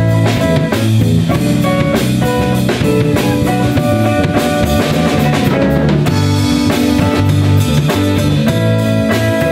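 Live band playing an instrumental passage on electric guitar and drum kit, with held low notes under the guitar; the drums are prominent, with a busy run of hits in the middle.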